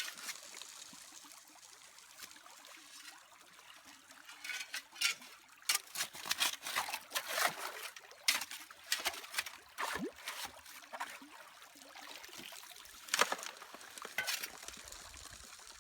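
Shallow stream water trickling, probably through a sluice box, with a steady hiss. Short splashes and pours come one after another from about four seconds in.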